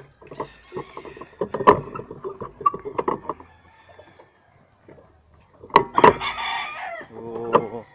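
A rooster crows once, a loud call of a little over a second near the end that drops in pitch as it finishes. Scattered clicks and knocks run through the first half.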